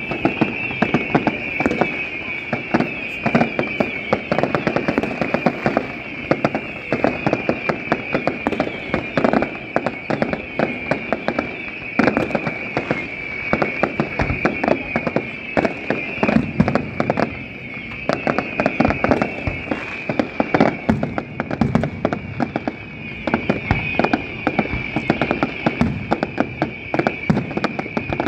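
Aerial fireworks going off in rapid, unbroken succession: many bangs and crackles overlap with no pause, over a steady high-pitched hiss.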